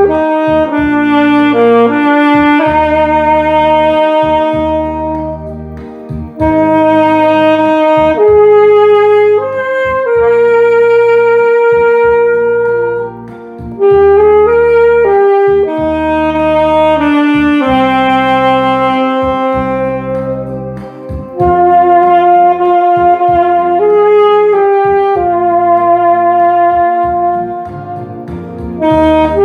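Saxophone playing a slow melody of long held notes over a recorded accompaniment with a steady bass.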